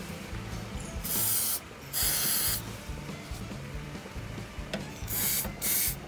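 Aerosol spray fired in four short hissing bursts at the exposed turn signal switch contacts: two about a second apart near the start, and two quick ones near the end.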